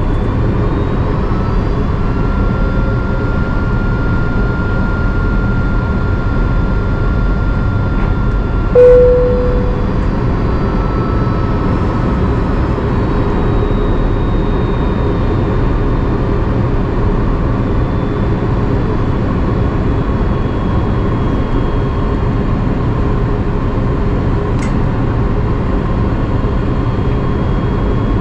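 Steady cabin noise of an Airbus A330-300 in flight, a deep, even rush of engine and airflow heard inside the cabin. About nine seconds in, one short tone sounds briefly over it.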